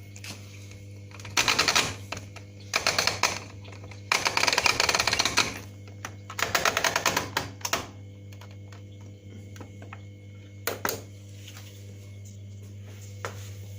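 Balay T-8295 front-loading washing machine with a steady low hum, broken by four bursts of rapid, dense rattling clicks in the first eight seconds and one short burst of clicks around eleven seconds in.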